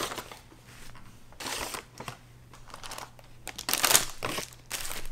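Paper McDonald's takeout bag and paper food wrappers rustling and crinkling in several short bursts as the food is pulled out of the bag, the loudest about four seconds in.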